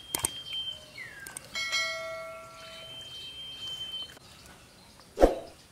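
YouTube subscribe-button sound effect: a mouse click, a short falling whoosh, then a bell ding that rings out for about a second and a half. A loud sharp thump comes near the end.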